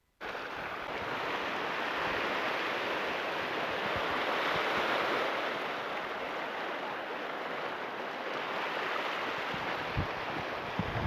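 Surf washing in over shoreline rocks on an incoming tide: a steady rush of waves that swells about halfway through. A few short low thumps come near the end.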